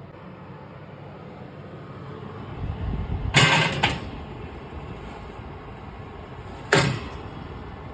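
A low steady rumble that swells into two sharp knocks half a second apart, followed about three seconds later by one more sharp knock.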